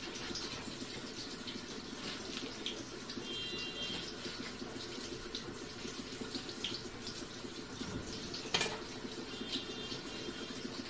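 Kitchen knife cutting leafy greens on a plastic cutting board: a few light taps and one sharper knock about three-quarters of the way through, over a steady hiss.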